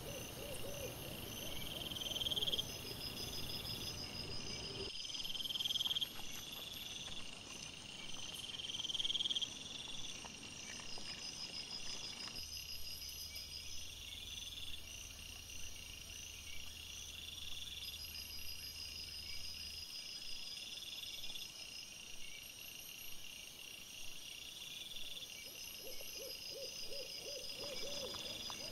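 Night woodland insects chirping in steady rows of repeating pulses, with a higher call repeating about every two seconds throughout. Near the start and again near the end, lower noises come from wild boar feeding close to the microphone.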